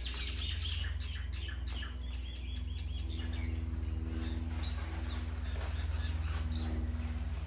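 Small birds chirping, in quick short calls most often in the first three seconds, over a steady low hum.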